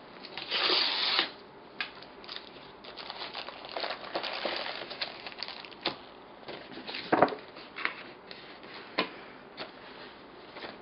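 A USPS Priority Mail flat-rate envelope torn open with a ripping sound about half a second in, then rustling and crinkling of paper and plastic packaging as the contents are pulled out, and a few light knocks and clicks as they are handled and set down on the table.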